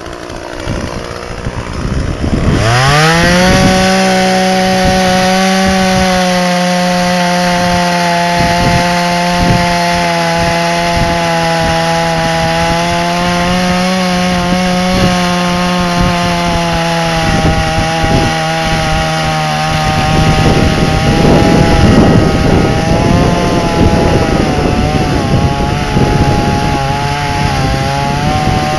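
Petrol chainsaw revved up from idle about two and a half seconds in, then held at high revs. From about twenty seconds in its pitch drops a little and the sound turns rough as the chain cuts into the wood under load.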